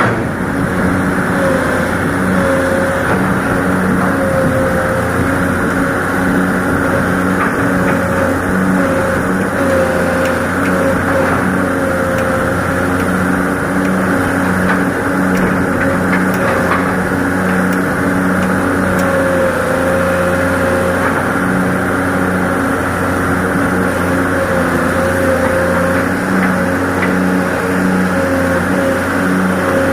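Excavator engine running steadily while digging, with a steady low drone and a higher whine that wavers slightly up and down.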